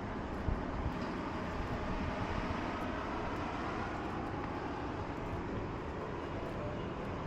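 Steady outdoor background noise with a strong, unsteady low rumble.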